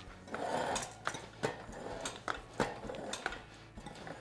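Gloved hands pushing a knobby dirt bike tire, with its foam mousse insert, down over the rim on a tire-changer stand. Rubber scuffs and rubs against the rim, with scattered light knocks and clicks.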